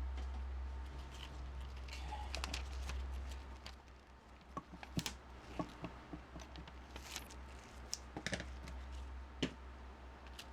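Scattered light clicks and taps of small craft items being handled and set down on a tabletop, over a steady low hum. The clicks come thicker from about halfway through.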